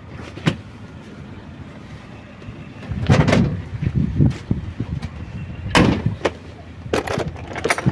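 Scattered knocks and clicks, with a low rumble of wind on the microphone for a second or two about three seconds in.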